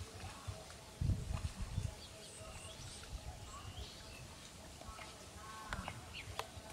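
Small birds chirping in short, scattered high calls, with a cluster of low rustles and thuds about a second in.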